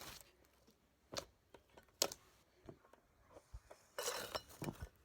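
Pink foam slime being squished and stretched by hand, giving irregular small pops and crackles, with a longer crunching stretch near the end.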